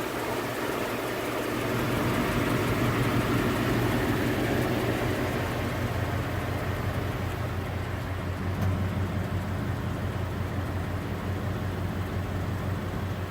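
Ford 5.0L Coyote V8 in a 2013 F-150 idling with a steady tick, tick, tick from the engine. At about 125,000 miles this ticking, which is common on 2011–2014 5.0L engines, has no diagnosis yet, and the owner is unsure whether it is normal.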